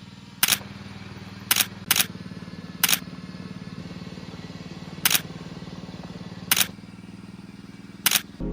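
A single-lens reflex camera shutter firing about seven times at irregular intervals, sometimes two in quick succession. Under it, a small engine runs steadily.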